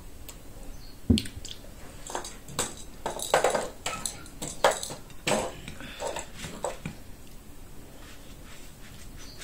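Eating by hand from china plates of rice and stew: scattered clicks and scrapes of fingers and food against the plates, with mouth sounds of eating. A dull thump about a second in is the loudest sound.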